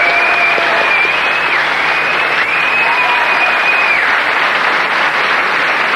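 Live audience applauding, a dense steady clatter of many hands. A high, steady held tone sounds over it twice in the first four seconds.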